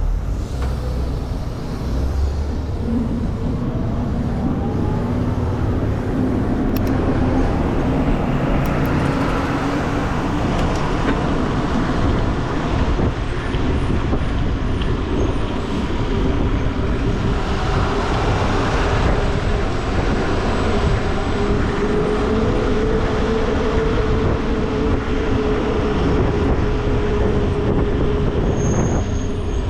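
Wind and road noise of a mountain bike being ridden on a road: a steady low rumble throughout, with a faint hum through much of the second half.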